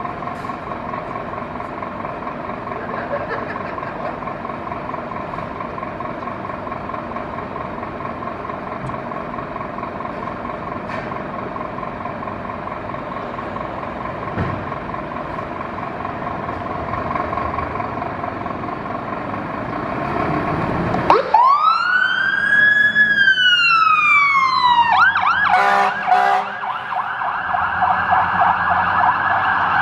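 Scania P360 fire engine running in the bay and growing louder as it moves off. About two-thirds of the way in its siren starts with a wail that rises and then falls, and near the end it changes to a different, steadier siren pattern.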